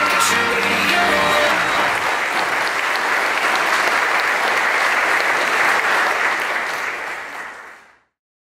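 Music ends about a second in, and a crowd applauds until the sound fades out near the end.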